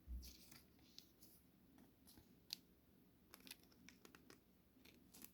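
Faint handling of trading cards: scattered light clicks and ticks of card stock being moved about, with a soft bump just at the start.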